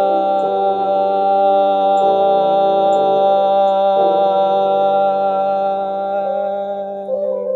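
A man's voice holding one long sung note at the close of a hymn, steady in pitch, over an instrumental accompaniment that changes chord three times beneath it.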